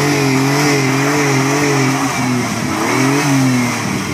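Nissan Xterra engine revving hard with its wheels spinning in deep mud while the SUV is stuck. The revs are held high and wavering for about two seconds, drop, rise again briefly, then fall away near the end.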